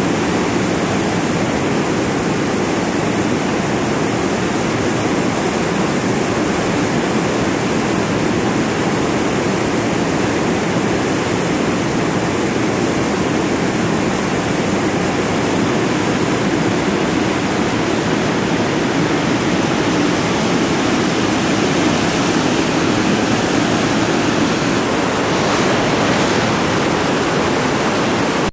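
Loud, steady rush of a whitewater rapid pouring over and between boulders, heard close up.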